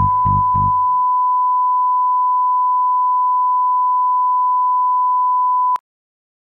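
A television colour-bars test tone: one steady, pure, high beep held for nearly six seconds that cuts off abruptly.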